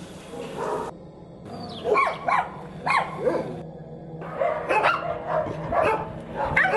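Dogs in shelter kennels barking, a string of about eight short barks in clusters with brief pauses between them.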